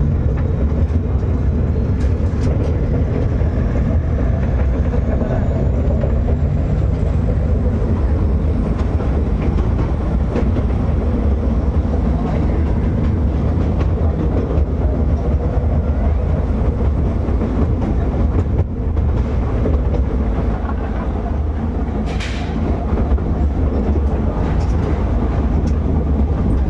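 Small open-sided miniature ride-on train running steadily along its track, heard from inside the carriage as a continuous low rumble of wheels and metal frame.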